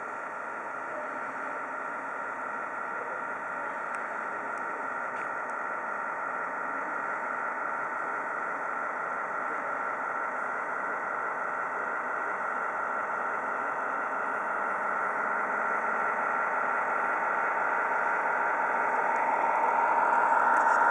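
Radio-controlled model ship Absolon under way, giving a steady engine hum from its sound module and drive that grows gradually louder as it approaches.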